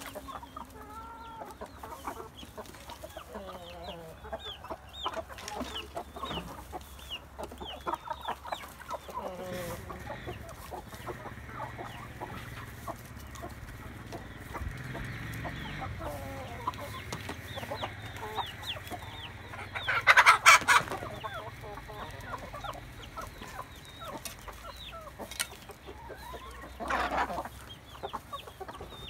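A flock of chickens clucking and cheeping steadily while feeding, many short overlapping calls. About two-thirds of the way through one bird lets out a loud squawk lasting about a second, and another shorter loud call comes near the end.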